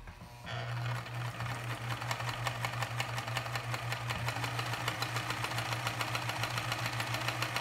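Freshly serviced Pfaff 209 free-arm sewing machine sewing a straight stitch through two layers of thin upholstery fabric at a steady speed: an even motor hum with rapid, regular ticking from the needle mechanism, starting about half a second in.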